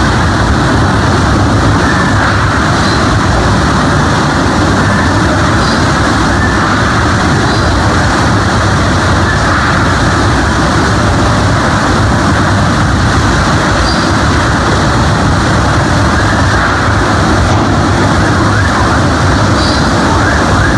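Typhoon-force wind and driving rain: a loud, steady rushing noise with no let-up, the wind buffeting the microphone into a low, uneven rumble.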